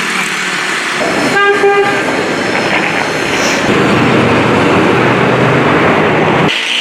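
Busy street traffic noise with a vehicle horn honking briefly about a second and a half in, then a louder rough engine or machine noise that stops abruptly shortly before the end.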